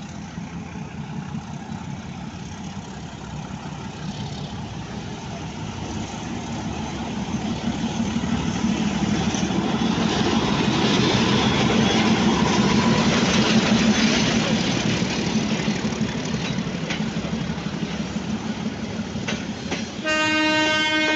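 Bangladesh Railway metre-gauge diesel locomotive no. 2314 pulling a local train out of the station: its engine drones steadily and grows louder as it comes past, loudest a little past the middle, then the coaches roll by with wheels clicking over rail joints. A horn sounds for about a second near the end.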